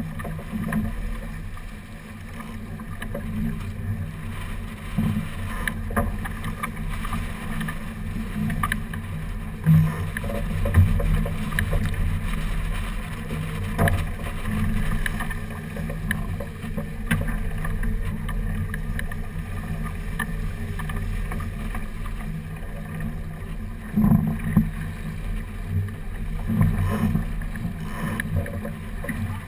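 Water rushing and splashing along the hull of a heeled sailboat under way, with wind buffeting the microphone and a few sharp knocks scattered through.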